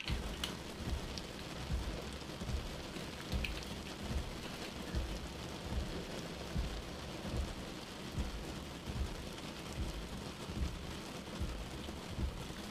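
Rain falling steadily: an even hiss with frequent low thuds.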